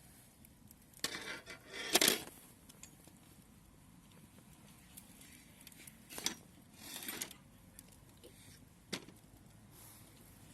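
Dishes and cutlery clattering and scraping during a meal: a few short clinks and scrapes, the loudest about two seconds in, more around six to seven seconds in, and one sharp knock near the end.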